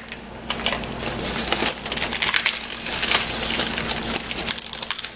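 Dried chili pods being broken open and de-seeded by hand inside a crinkly plastic bag: a dense run of crackling and crinkling that eases off near the end.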